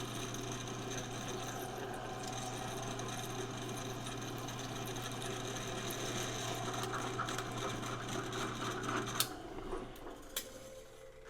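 Drill press running while drilling a bolt hole in a metal plate, a steady motor hum that shuts off about nine seconds in. A few sharp knocks follow near the end.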